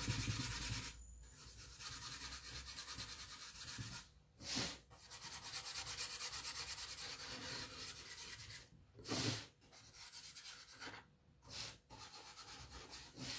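A nearly dry paintbrush scrubbed in quick, short back-and-forth strokes across a wooden box lid, with brief pauses between runs of strokes.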